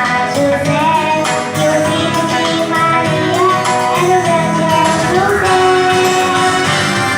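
A choir singing a song with instrumental accompaniment, female and children's voices carrying the melody.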